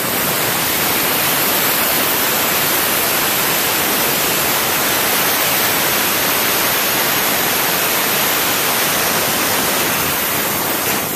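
Harbor Freight 20 lb pressurized abrasive blaster spraying baking-soda media through its nozzle: a loud, steady hiss of air and soda that cuts off sharply at the end when the valve is shut. The soda is stripping paint from a steel motorcycle frame.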